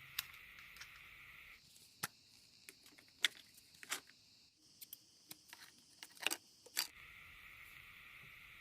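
A dozen or so sharp, irregular clicks and light clatter of small hard objects being handled, packed into about five seconds in the middle, with a faint steady hiss before and after.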